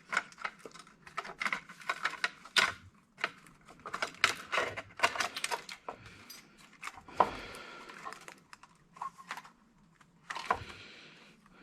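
Irregular clicks, clinks and knocks of metal parts and circuit boards being handled while a gas-station console is taken apart, with a couple of longer scraping sounds.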